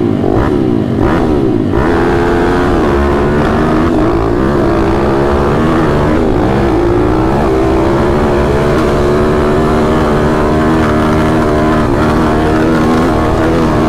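Pit bike single-cylinder four-stroke engines at full throttle, two bikes racing side by side. The revs climb sharply again and again through the gears in the first two seconds, then hold high and fairly steady along the straight.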